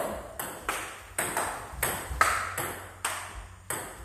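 Table tennis rally: the ball clicking sharply off the bats and the table in quick alternation, about two to three hits a second, some hits ringing briefly.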